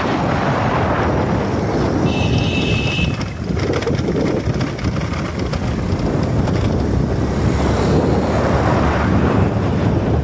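Wind buffeting the microphone of a camera riding in a moving vehicle, over the low rumble of the vehicle on the road. A brief high-pitched tone lasting about a second sounds about two seconds in.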